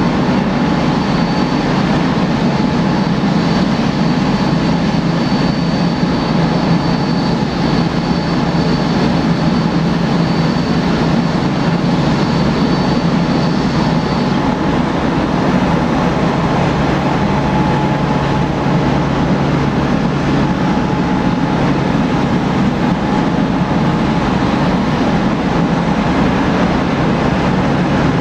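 Boeing 787-8 airliner's Rolls-Royce Trent 1000 jet engines running at taxi power, a steady loud jet noise. A high thin whine in it fades out about halfway through as the aircraft taxis away.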